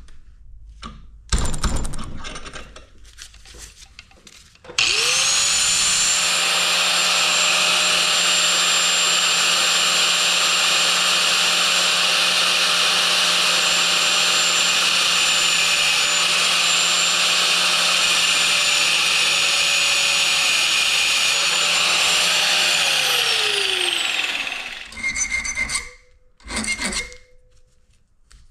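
Angle grinder cutting through a bolt clamped in a bench vise: the motor spins up about five seconds in, runs steadily with a high whine over the grinding hiss for some eighteen seconds, then winds down. A sharp clank comes shortly before it starts, and a few light scrapes and knocks follow.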